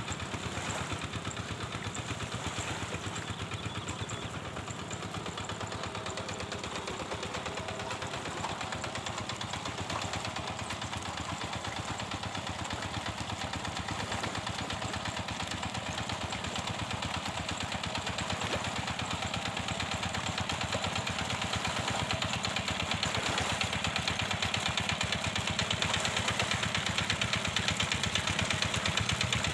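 Two-wheel hand tractor's engine running steadily with a fast, even chugging as it works the flooded rice paddy. It grows gradually louder in the last third.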